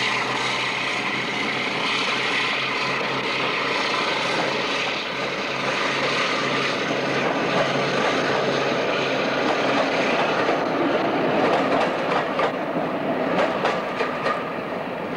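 Diesel locomotive working hard as it pulls a passenger train away, its steady engine note fading over the first half. From about two-thirds of the way in, the coach wheels click over the rail joints as the carriages roll past.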